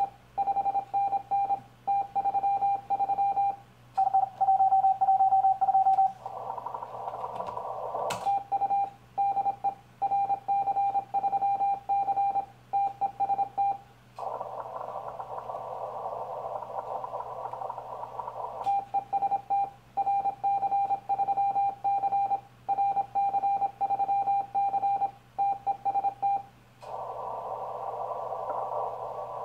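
Morse code CQ call sent on 40 m as a keyed sidetone of about 800 Hz from a Yaesu FT-1000MP Mark-V transceiver. The call stops three times for a few seconds of receiver band hiss, heard through the narrow CW filter while the operator listens for replies. A low hum runs underneath.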